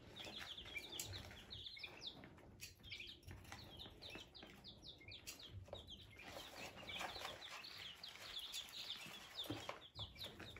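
A brood of five-day-old baby chicks peeping continuously: many short, high, falling cheeps overlapping one another.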